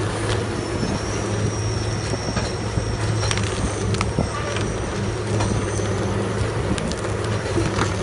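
A heavy machine's diesel engine running steadily, with scattered sharp cracks and snaps of wood being broken up, and a thin high whine through the middle.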